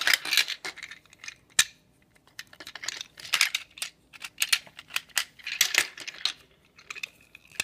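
Plastic parts of a Delta Runner Zord toy clicking and clattering as it is transformed by hand into another mode: irregular sharp clicks and snaps in small clusters.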